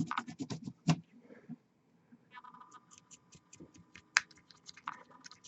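Rapid small, sharp clicks and ticks in two runs: one in the first second, another from about two seconds in until near the end.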